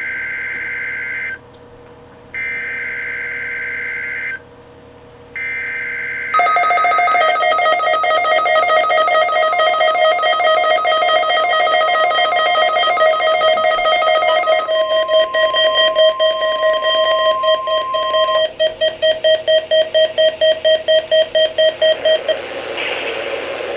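NOAA Weather Radio alert: three short bursts of screeching SAME data tones, then Midland WR300 and WR100 weather alert radios sounding their alarms. The alarm is a loud, shrill electronic tone, joined for a few seconds by a second steady tone. It then turns into rapid beeping and cuts off shortly before the end.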